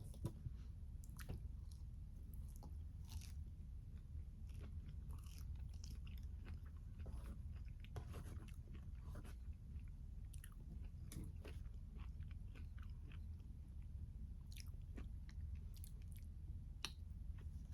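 Close-miked chewing and biting of a tomato, peach and basil salad: irregular wet crunches and mouth clicks, over a steady low hum.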